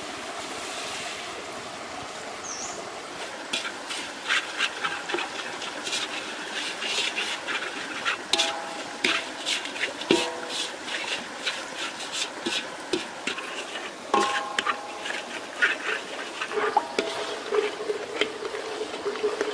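Metal spatula scraping and knocking against a dry steel wok in irregular strokes, stirring sugar as it melts into caramel, with the wok ringing briefly now and then. It opens with the soft hiss of granulated sugar pouring into the pan.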